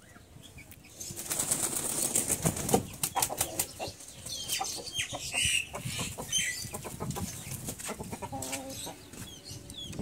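A bird's wings flapping in a burst of rapid beats for a few seconds, then scattered rustles and knocks with short, high, falling chirps.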